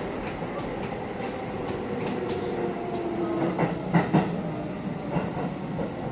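Keisei 8800 series electric train heard from inside the car: the Mitsubishi GTO-thyristor VVVF inverter whines in several tones that slowly slide down in pitch, over the steady rumble of the wheels on the rails. A few sharp knocks of the wheels over rail joints come about four seconds in.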